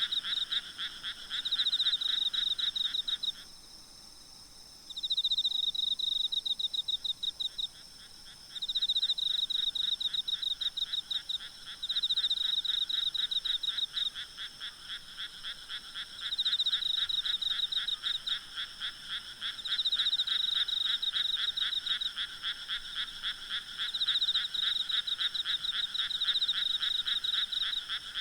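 Night chorus of frogs calling in bouts of rapid, evenly pulsed croaks that stop and restart every few seconds, with faint steady insect trilling underneath.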